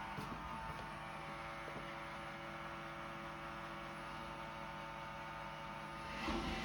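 Roomba robot vacuum running: a steady motor hum with several whining tones, growing louder about six seconds in.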